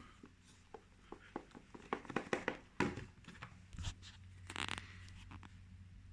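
Cardboard box and packaging being handled: scattered light clicks and rustles, with a short scrape or rustle a little over four seconds in.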